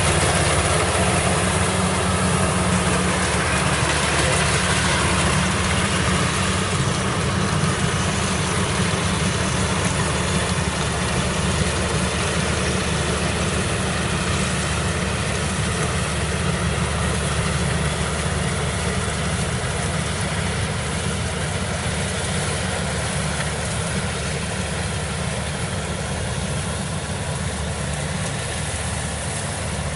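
Kubota rice combine harvester's diesel engine running steadily as the machine cuts and threshes rice: a constant low drone under a broad rushing noise, growing slowly quieter.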